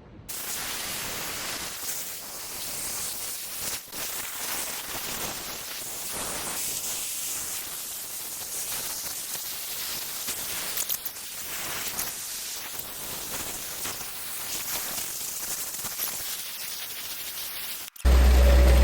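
A steady rushing hiss, spread evenly from low to high pitch. It cuts off abruptly near the end, and a much louder low engine drone takes over.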